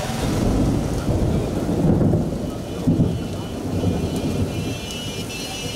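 Heavy rain pouring down on a street, under a deep rumble of thunder that swells about two and three seconds in.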